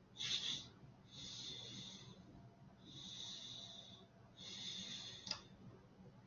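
Faint breathing close to the microphone: four short hissy breaths, each under a second, with a single sharp click near the end.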